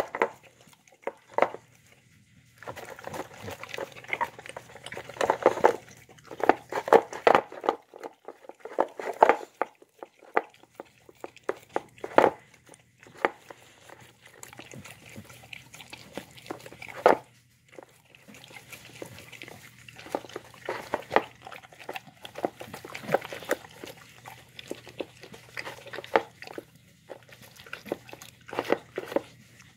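A Shar-Pei and pit bull mix dog eating soft, wet food of chicken, vegetables and broth-soaked rice from a plastic bowl: irregular chewing, smacking and licking, with a few sharper clicks now and then and short pauses. Near the end the bowl is almost empty and the dog is licking it clean.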